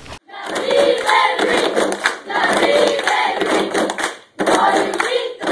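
A group of voices chanting together in unison, in phrases of about two seconds with short breaks between them.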